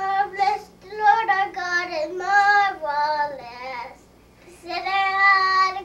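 A young girl singing in a high voice, holding long notes. There is a short break just before a second in and a longer breath pause around four seconds.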